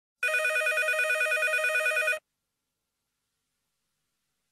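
An electronic telephone ringer warbling in a single ring of about two seconds.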